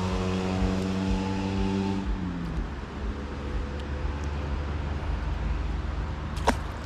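An engine running steadily, its pitch dropping about two seconds in as it slows, then carrying on at a lower speed. A single sharp click near the end.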